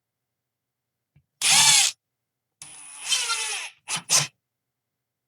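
Power drill driving a sheetrock screw through the drywall into a wooden 1-by backer board. It gives a short burst, then a longer run of about a second, then two quick blips.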